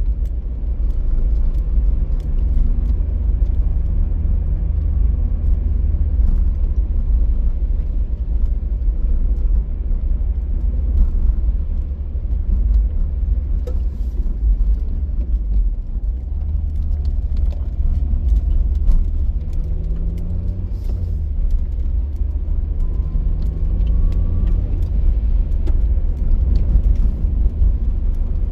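Car driving along a road: a steady low rumble of road and engine noise, with the engine note rising and falling a few times as speed changes.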